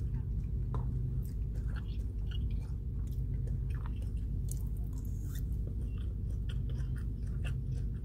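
Close-up chewing and mouth sounds with irregular small clicks and smacks, along with a plastic fork scraping and tapping in a paperboard takeout box, over a steady low hum.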